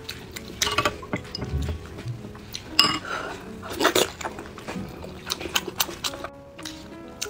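Close-up eating sounds: wet clicks, smacks and slurps of biting into and sucking on a large sauce-coated sausage, irregular, with the loudest bites about three seconds and four seconds in.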